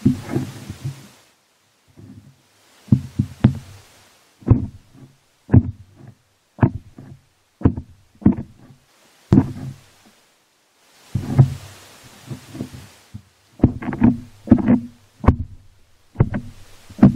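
Irregular dull knocks and thuds, one or two a second with short pauses between groups, with patches of hiss. They come from a voice-activated recorder lowered 22 m down a hole in a field. The uploader takes them for dynamite blasting and rock-drill work in a tunnel.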